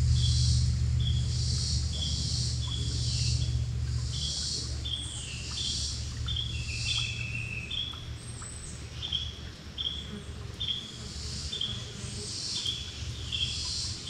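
Woodland ambience: birds and insects calling in a steady repeating pattern, about three calls every two seconds. Under them a low hum fades away over the first few seconds.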